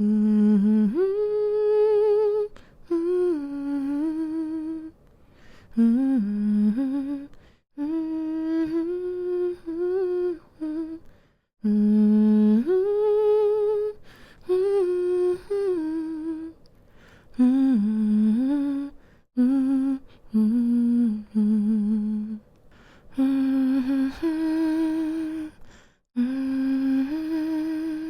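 A woman humming a slow, soothing lullaby-style tune in short phrases that glide between notes, with brief pauses between phrases.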